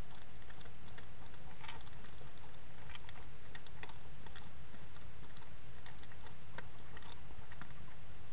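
A hedgehog crunching dry food pellets from a bowl: irregular small clicks and crackles over a steady low hum.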